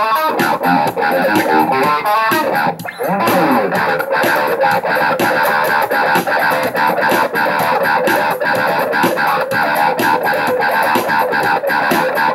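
Samick Stratocaster-style electric guitar playing a fast, rhythmically accented picked riff, a rhythmic-displacement exercise, with a brief break about three seconds in.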